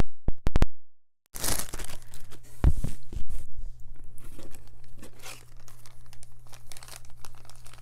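Clear plastic packaging bags crinkling and rustling as they are handled, with a low thump about two and a half seconds in. It opens with a brief dead silence broken by a few sharp clicks.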